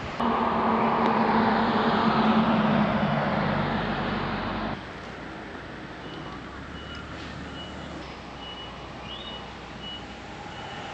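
A motor vehicle's engine running close by, steady and fairly loud, cuts off abruptly about five seconds in. Quieter street background follows, with a short high beep repeating at a regular pace, like a vehicle's reversing alarm.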